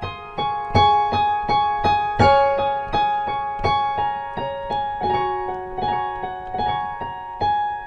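Background piano music: single notes struck at an even, unhurried pace, each ringing on under the next.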